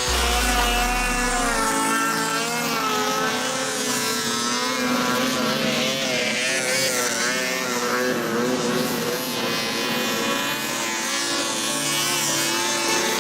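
Snowmobile engine running hard as the sled skims across open water, its pitch wavering up and down. Deep bass from background music fades out about two seconds in.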